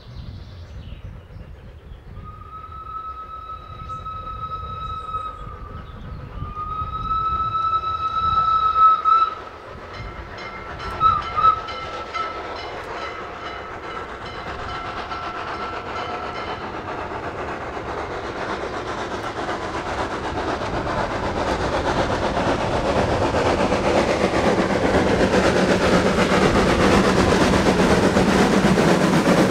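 Steam whistle of the narrow-gauge steam locomotive 11sm: two long steady blasts, about two and about six and a half seconds in, then a short toot near eleven seconds. The running noise of the train then grows steadily louder as the locomotive approaches.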